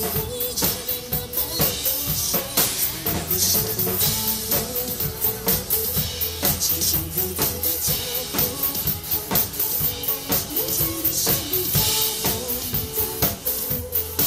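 Drum kit played live to a pop song's band track: a steady beat of bass drum, snare and cymbals over sustained bass and chords.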